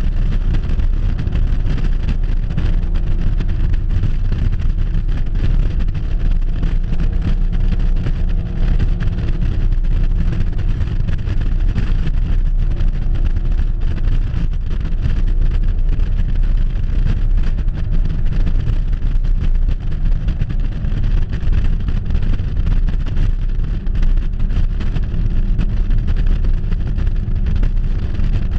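A car driving fast around an oval track: steady engine and road noise, with wind rushing over a microphone mounted outside on the car's trunk.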